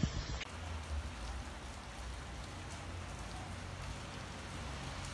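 Wind buffets the microphone for the first half second, then steady rain falls with an even hiss.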